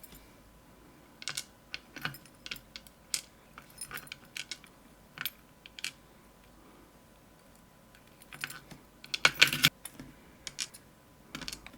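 Small metal parts of a Medeco lock clicking and clinking as they are handled, with scattered single ticks and a louder flurry of clinks near the end.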